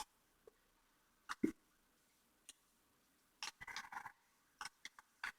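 A single hiccup about a second and a half in, amid faint rustles and small ticks of a folded dollar bill being handled.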